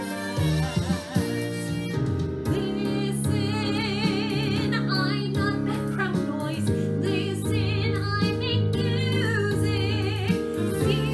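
A woman singing a musical-theatre song over instrumental accompaniment, holding notes with a clear vibrato.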